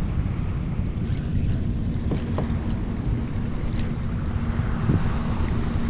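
Wind rumbling on an action camera's microphone, with water sounds around a kayak; a faint steady hum joins about two seconds in.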